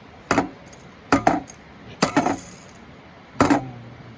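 A seasoning shaker shaken over food in four short bursts, each shake a sharp clinking rattle, while the amount is judged.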